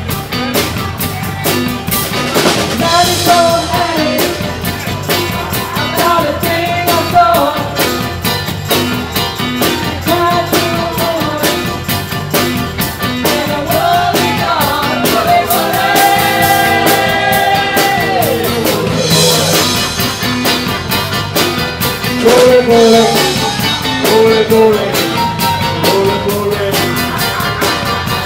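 Live rock band playing a song: drum kit, electric guitars and keyboard with a sung vocal line over them, loud and continuous.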